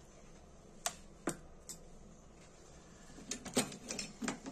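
Sharp clicks and taps of small metal hand tools, tweezers and needle-nose pliers, working on tiny lighter parts: three single clicks in the first two seconds, then a quick run of clicks a little after three seconds in.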